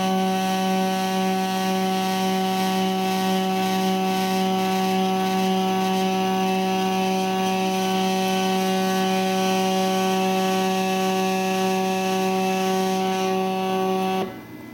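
Stepper motors of a homemade CNC hot-wire foam cutter whining at one steady pitch as they turn the threaded rods that carry the wire through a foam wing core. The whine cuts off near the end as the cut finishes.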